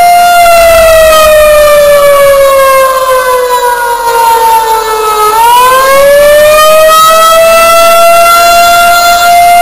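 Loud outdoor warning siren on its monthly test, sounding a wail: a steady tone that slides down in pitch for about five seconds, then climbs back up and holds steady again.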